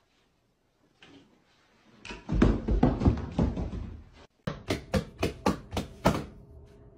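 Thuds and scuffling of a person falling onto a hard floor, then a quick run of about seven sharp knocks.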